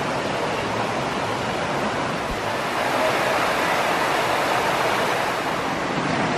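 Creek water rushing over rocks and a small cascade: a steady hiss that grows a little brighter about three seconds in.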